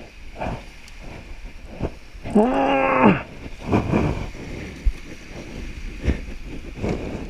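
A person's drawn-out cry, under a second long, about two seconds in, its pitch rising and then falling, with a shorter weaker cry a second later. Beneath it, surf and water splashing with a few sharp knocks.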